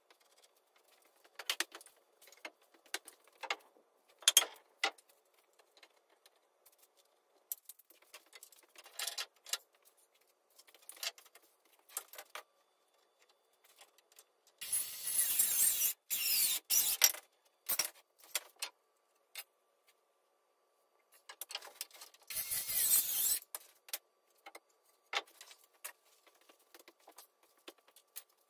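Scattered knocks and clatter of lumber and tools being handled during stud-wall framing, with two longer noisy spells of a second or two, the first about halfway through and the second a few seconds later.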